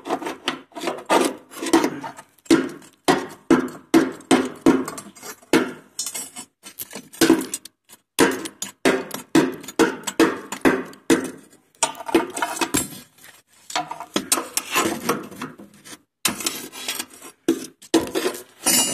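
Metal rod scraping and knocking through ash and brittle, burnt-out steel plate debris on the floor of a rocket stove's combustion chamber, in repeated short strokes about two a second with a few brief pauses.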